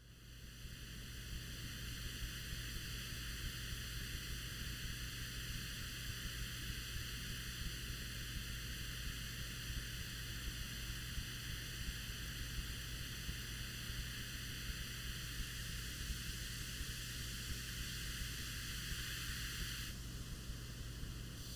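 Steady static-like hiss over a low hum, an electronic noise drone; it fades in over the first second or two, and the hiss thins out about twenty seconds in.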